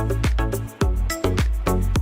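Background music with a steady beat: a heavy bass line under sharp, regular drum hits.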